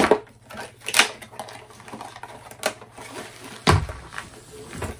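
Cardboard diamond-painting kit box being opened and its contents handled: a string of sharp clicks and snaps with rustling between, and a heavier thump about three-quarters of the way through.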